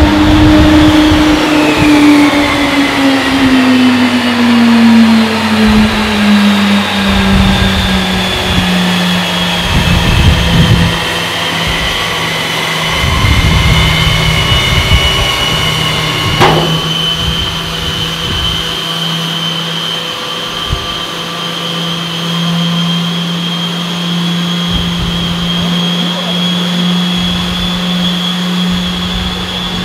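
B-29 main landing gear retracting during a gear swing test: the electric retraction motor whines, its pitch sinking over the first several seconds and then holding steady. One sharp click comes about halfway through.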